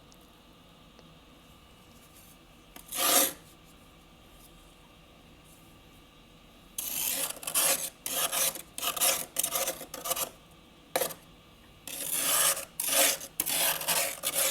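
Built-up freezer frost being scraped. There is a single rasping scrape about three seconds in, then, in the second half, a run of about ten repeated scrapes, each under a second, with short pauses between them.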